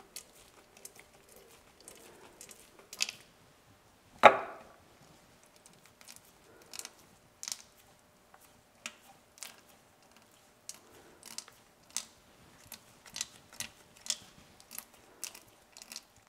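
Thick fresh grease squelching and smacking as the gears of a freshly packed milling-machine spindle gearbox are turned by hand. A string of short, sticky clicks, with one louder smack about four seconds in.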